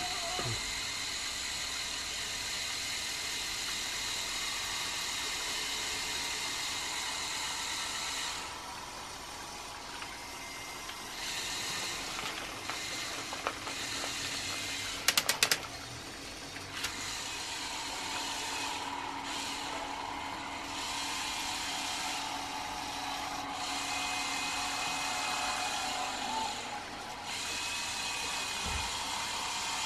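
LEGO Technic 8043 excavator's electric motors whirring as they drive its linear actuators and gears. The whine stops and restarts several times and shifts in pitch as different functions run. A few sharp clicks come about halfway through.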